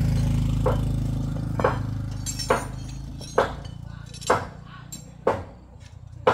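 Metal being struck about once a second, seven sharp ringing blows, over an engine's low steady running that fades away.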